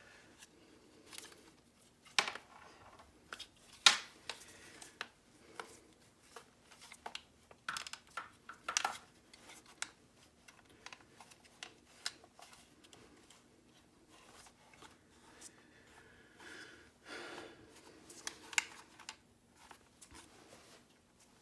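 Plastic housing of a car door lock actuator being handled and snapped shut: scattered sharp clicks as its tabs are pressed down and lock into place, with rubbing and rustling of plastic between them.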